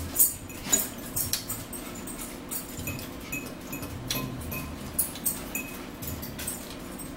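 Forks clinking and scraping against a plate and a salad bowl while two people eat, a string of sharp clinks with the loudest two in the first second and short ringing tones after some of them.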